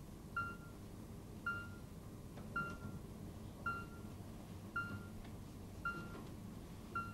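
Hospital heart monitor beeping steadily: a short high beep about once a second, seven in all, over a low hum.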